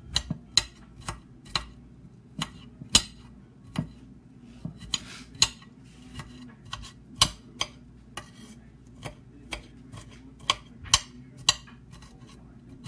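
Kitchen knife chopping celery on a glass cutting board: irregular sharp clacks of the blade hitting the board, roughly one to two a second.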